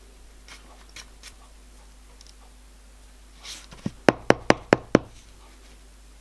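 A small brass block rapped sharply on a mat-covered workbench, about six quick knocks in a row, the first one softer. Before the knocks there are a few faint ticks.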